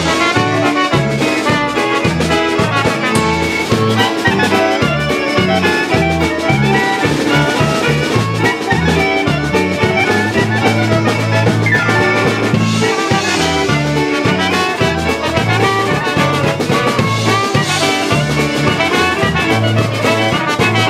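Live polka band playing: trumpet and clarinets carrying the melody over electric keyboard and drum kit, with a regular low bass beat.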